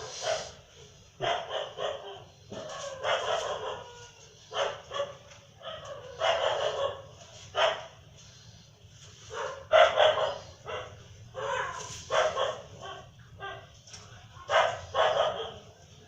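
A dog barking over and over in short, irregularly spaced barks.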